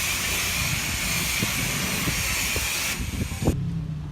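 Steady hiss of a car-wash spray wand, most likely a high-pressure water spray, with a few faint knocks beneath it; it drops away about three seconds in and cuts off suddenly about half a second later.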